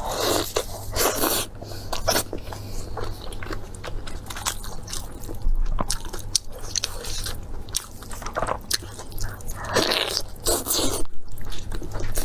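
Close-miked eating: crunchy bites and chewing, with short crackling crunches throughout and louder bursts of crunching just after the start and again about ten seconds in.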